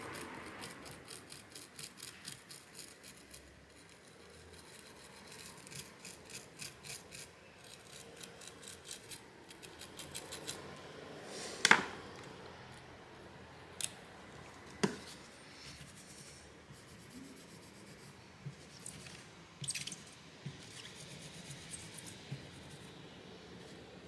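Toothbrush bristles scrubbing old thermal paste off a graphics card's circuit board around the GPU die, in quick, even strokes with a short pause. About halfway through comes a sharp knock, followed by a few lighter clicks as the brush is set down and the board is handled.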